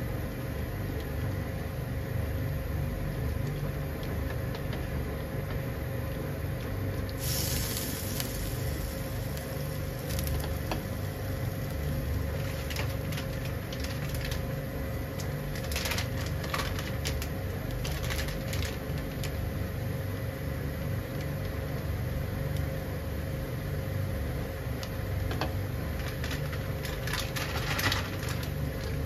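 Water with ramen noodles boiling in a pan on a gas stove: a steady low rumble, with scattered small pops and crackles from about seven seconds in.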